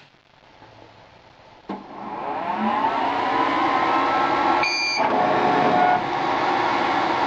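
Epilog laser engraver powering up after repair: about two seconds in, its fans and motors start with a whir that rises in pitch and then holds steady. A short high beep sounds near the middle.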